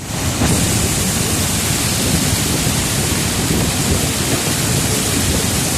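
Loud, steady rush of floodwater, a continuous roar of flowing water that rises in within the first half second.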